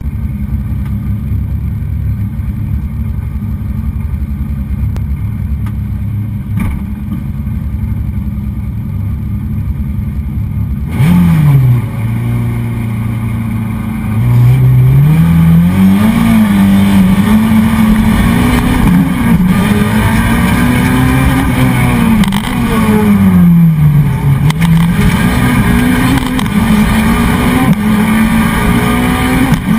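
Renault Clio Williams Group A rally car's four-cylinder engine, heard from inside the cockpit. It idles steadily at the stage start and gives a quick rev blip about eleven seconds in. A few seconds later it launches hard, accelerating through the gears, its pitch climbing and dropping back with each change.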